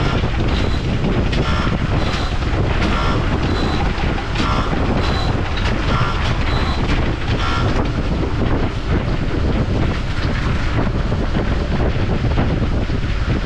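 A vehicle's reversing alarm beeps about every three-quarters of a second and stops about seven and a half seconds in. Under it is a loud, steady rumble of heavy machinery, mixed with wind on the microphone.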